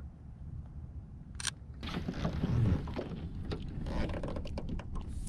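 Water sloshing against a boat hull with wind rumble on the microphone, overlaid by short splashes and handling clicks as a largemouth bass is held at the waterline for release. It grows louder from about two seconds in.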